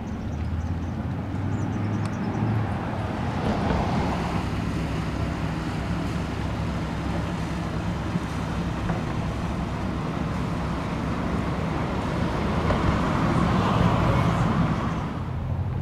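Road traffic noise: a steady low hum of engines and tyres, swelling about four seconds in and again near the end.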